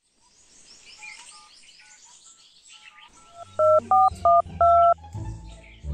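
Mobile phone keypad dialing tones: four loud touch-tone beeps, each two pitches at once, in quick succession about three and a half seconds in, as a number is dialed.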